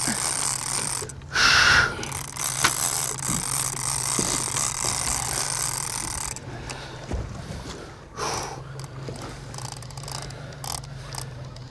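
Conventional casting reel clicking as the line is worked against a hooked amberjack, over a steady low hum from the boat's idling engine.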